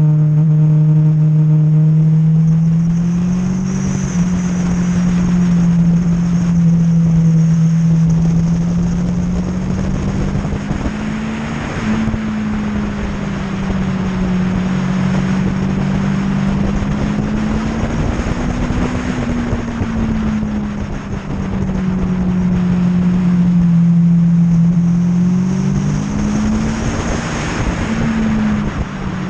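Motorcycle engine heard on board at track speed under steady wind rush, its pitch rising and falling gently as the throttle is worked through the bends.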